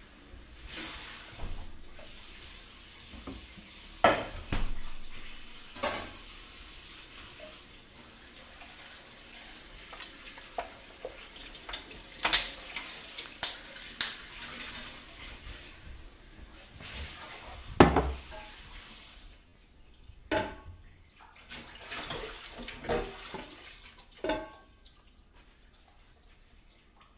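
Scattered sharp knocks and clicks over a faint steady hiss, the loudest knock about two thirds of the way through, then a run of short clattering sounds with brief pitched notes before it quietens near the end.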